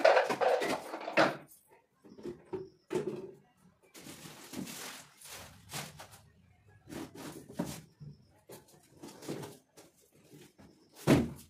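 Kitchen items being moved and put down during cleaning: rustling and handling noise for the first second or so, then scattered light knocks and clicks, with one loud thump near the end.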